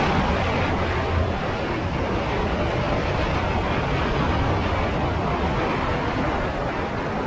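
Honda Africa Twin's parallel-twin engine running at an even cruising speed on a gravel road, under a steady rush of wind and tyre noise.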